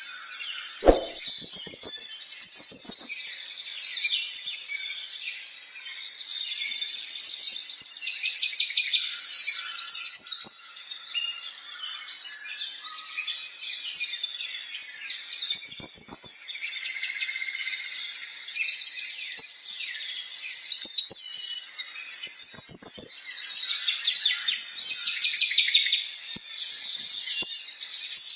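Many small birds chirping at once in a dense, continuous chorus of rapid high chirps, with a few brief knocks.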